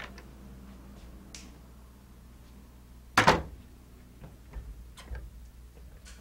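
A door being opened into a small room: one sharp clack about three seconds in, then a few light knocks, over a low steady hum.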